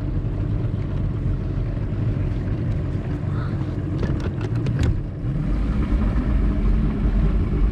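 Bass boat's outboard motor running steadily at low speed, a low, even engine hum under some rush of wind and water, with a few light clicks about four to five seconds in. The outboard has been repaired after dropping a cylinder and runs evenly.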